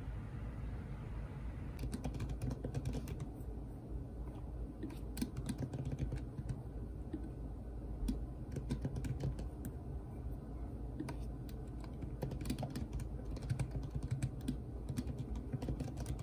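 Typing on a laptop keyboard: quick key clicks in irregular bursts, over a low steady hum.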